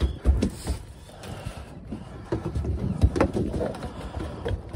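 Irregular knocks and clicks of gear being handled, over an uneven low rumble of wind on the microphone.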